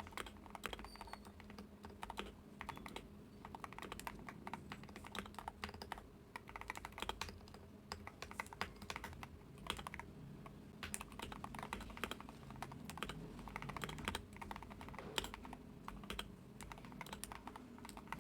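Typing on a lubed Wooting 60HE mechanical keyboard. It is a steady run of quick, irregular keystrokes, several a second, with short pauses between bursts.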